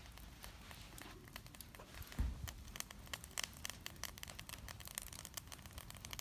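Wood campfire crackling with many irregular sharp clicks, the fire just stoked up to high heat. A low thump about two seconds in.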